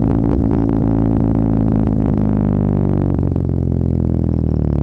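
Straight-piped, muffler-deleted exhaust of a turbocharged 2009 Chevy Cobalt SS 2.0-litre four-cylinder, heard right at the tailpipe as the car rolls along. It is a steady, loud drone, with its pitch dropping slightly about halfway through as the revs fall, then holding.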